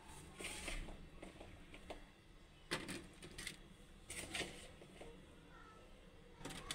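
Faint scraping and light clinks of a spoon on a bowl and plate as chickpea chaat mixture is spooned into fried batter cups, coming in a few short bursts.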